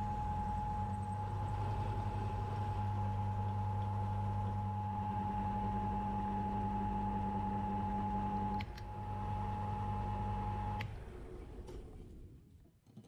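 Milling machine spindle running steadily while a drill bit cuts holes in a metal chuck body, a low hum with a steady whine. The whine stops with a click about eight and a half seconds in. Another click comes a couple of seconds later and the machine winds down.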